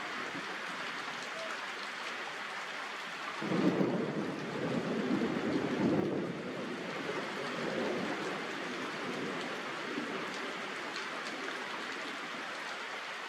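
Steady rain falling, with a roll of thunder that starts suddenly a few seconds in, rumbles for about three seconds and fades away.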